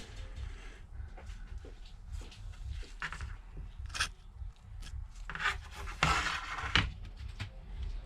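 Short scrapes and rubs of small hand tools working on an iPad, several times, the longest and loudest about six seconds in, over a low rumble.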